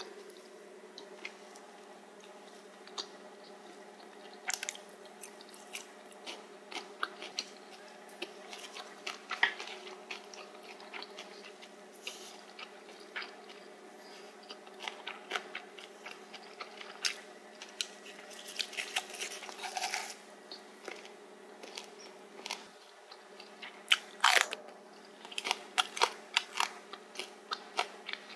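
Chewing and crunching of spicy stir-fried pork cartilage (odolppyeo), the gristle cracking between the teeth in many short, sharp crunches that come thickest near the end. A steady low hum runs underneath.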